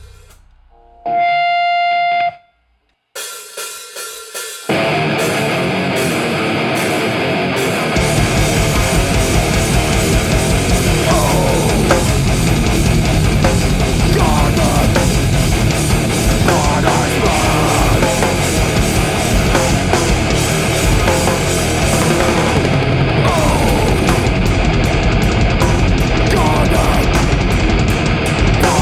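Live heavy rock band with distorted electric guitars, bass and drum kit. A single held note rings for about a second, then a brief gap and a few short choppy stabs, and the full band comes in about five seconds in, with the low end filling out around eight seconds.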